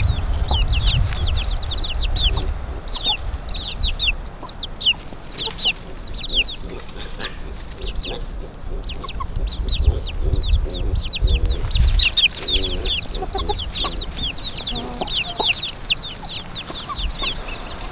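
A flock of chickens foraging: young birds peep constantly in short, falling, high chirps, several a second, while hens cluck low now and then through the middle, over a steady low rumble.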